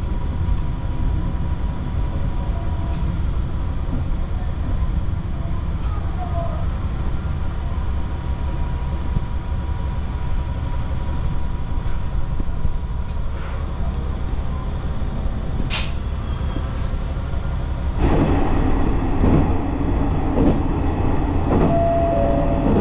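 Single-car diesel railcar heard from inside: a steady low engine drone and wheel-on-rail rumble. There is one sharp click about 16 seconds in, and from about 18 seconds the running noise gets louder, with rattles and knocks.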